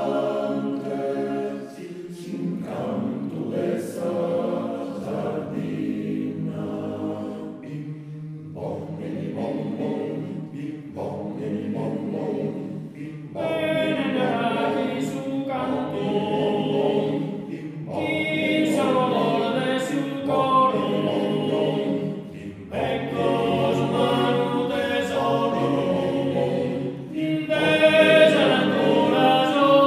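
Male choir singing a cappella in Sardinian, several voices holding chords together in long phrases with short breaths between them. The singing grows fuller and louder about halfway through.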